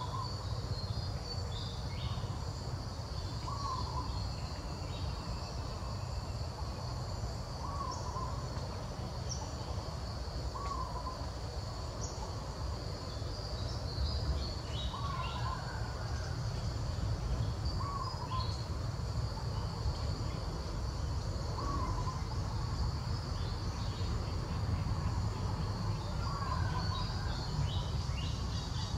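A bird repeats a short hooting call every two seconds or so. Behind it are a steady high insect buzz with scattered small chirps and a constant low rumble.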